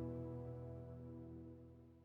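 Background music fading out: sustained ambient keyboard chords growing steadily quieter.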